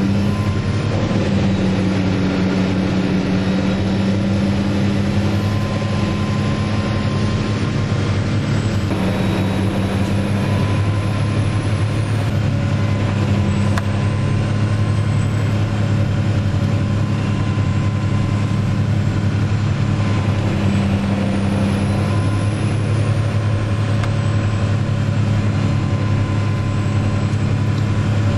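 Dutch Dragon EC9045 tractor-PTO-driven wood chipper running steadily under load as branches are fed in, a loud continuous mechanical drone with the tractor engine beneath it.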